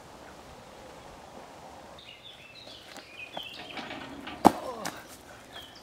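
Woodland background with small birds chirping from about two seconds in, and one sharp knock about four and a half seconds in as a person vaults over a metal barrier pole.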